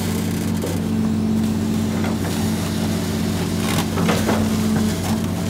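Hitachi excavator's diesel engine running at a steady speed, heard from the operator's cab, as the bucket digs sand in a truck bed. A few short scrapes and knocks come about four seconds in.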